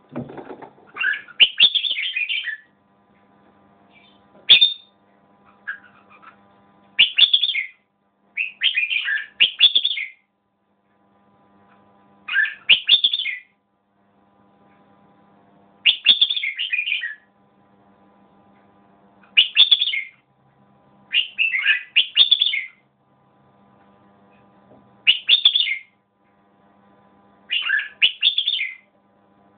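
Caged red-whiskered bulbul singing: short, bright, warbling phrases repeated about every two to three seconds, around ten in all.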